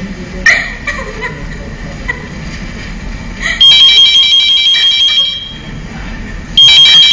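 A telephone ringing twice, each ring about a second and a half long with a fast trill, the first starting about three and a half seconds in.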